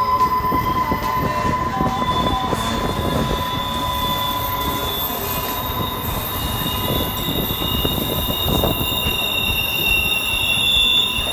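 Double-stack intermodal freight cars rolling past on a curve, wheels on the rails with a steady high-pitched squeal from the wheel flanges rubbing the rail. A higher squeal tone sets in a few seconds in and grows louder near the end.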